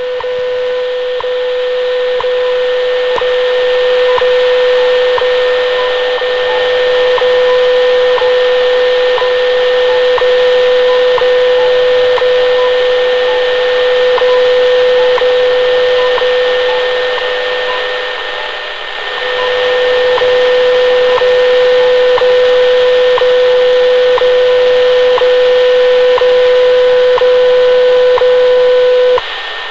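Shortwave reception of the WWV time signal on 10 MHz through a small pocket radio: a steady tone with a short tick once a second, under a constant hiss of static. Fainter beeps from other time stations, believed to include China's BPM, are mixed in. The tone breaks briefly past the middle and cuts off shortly before the end.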